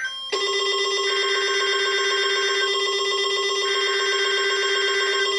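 NOAA Weather Radio SAME alert header: raspy two-tone digital data bursts about a second and a half long, repeated with about a second between them, marking the start of an emergency alert. Under them, a steady buzzing electronic alarm tone from a weather alert radio comes on a moment in.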